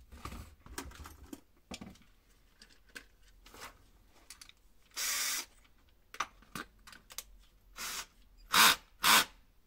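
Workbench handling of tools and parts: scattered clicks and knocks, a short hiss-like burst about halfway, and two louder short bursts close together near the end.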